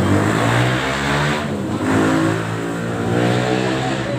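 A motor vehicle engine running and revving, its pitch sliding up and down.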